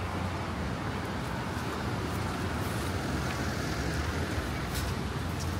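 City street traffic: cars and vans running along the road, a steady rumble of engines and tyres.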